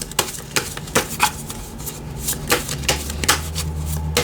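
Tarot cards being handled and laid on a table: irregular sharp taps and clicks, a few a second, with a low steady hum coming in about three seconds in.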